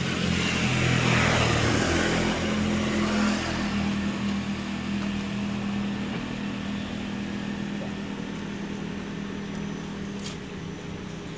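A motor vehicle engine running with a steady hum. It is loudest in the first couple of seconds and slowly fades after that.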